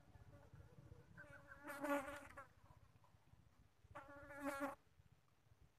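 A flying insect buzzing close past the microphone twice, about a second in and again around four seconds in, its pitch wavering as it moves. A faint low rumble runs underneath.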